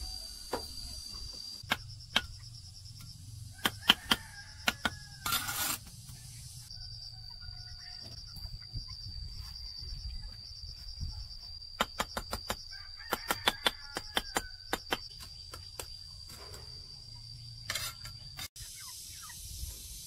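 A steady high-pitched insect trill, dropping out briefly a few times, with scattered sharp taps and knocks over it, some in quick runs of several in a row.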